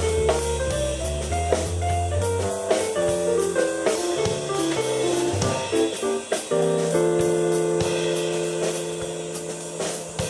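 Live keyboard and drum kit duo playing a rock jam: keyboard bass line and chords over drums with repeated cymbal hits. About six and a half seconds in, the keyboard holds a long chord for several seconds.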